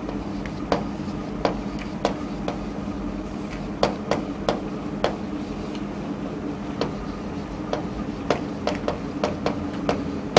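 Chalk tapping and scratching on a chalkboard as words are handwritten: irregular sharp taps, about two a second, over a steady hum.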